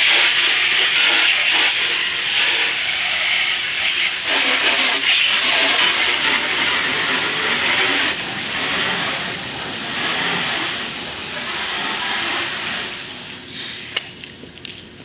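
Steady hiss of a cleaning sprayer running continuously, easing off about thirteen seconds in. A few light clicks follow near the end.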